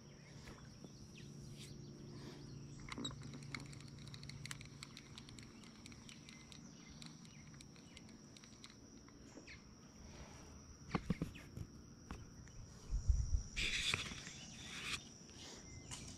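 Insects trilling steadily on one high note, with scattered faint clicks. Past the middle come a few low thumps and a short rustle, the loudest sounds here.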